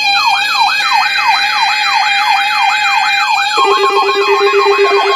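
Electronic siren yelping in quick rising-and-falling sweeps, about three a second. About three and a half seconds in, a steady lower tone and pulsing beeps join it.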